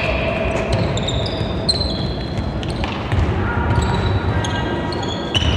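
Basketball play on a wooden gym court: sneakers squeaking in short, scattered squeals, and the ball bouncing now and then, over the steady background noise of a large hall.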